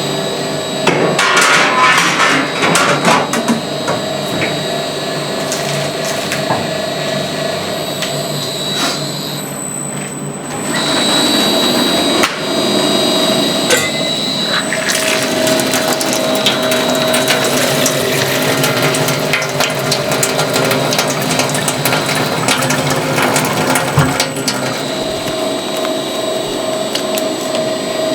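A machine running steadily with a constant whine, overlaid with clicking and rattling.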